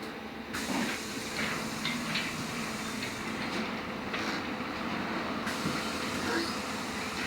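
Compressed air hissing loudly on a LiAZ-6274 electric bus standing at a stop, starting suddenly about half a second in and lasting about five seconds, with a few knocks and clicks over the bus's steady running noise.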